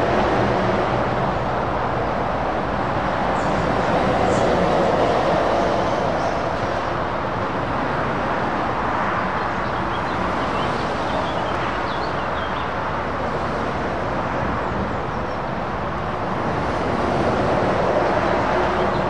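Steady motorway traffic: the continuous rush of tyres and engines from cars and heavy lorries, swelling about four seconds in and again near the end as a heavy lorry draws near.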